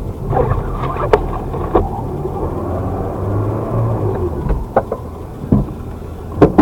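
Blizzard wind rumbling and buffeting the microphone, with several sharp knocks and clicks through it.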